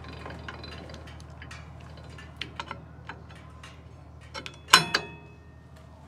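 Wood-Mizer LT15 Wide sawmill head being lowered by its hand crank: a run of light metallic clicks and ticks from the height mechanism. A louder metal clank with a brief ringing tone comes about three-quarters of the way through.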